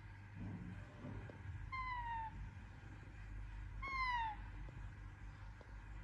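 A young Indian ringneck parakeet gives two short, meow-like calls about two seconds apart, each sliding down in pitch. The second call is louder.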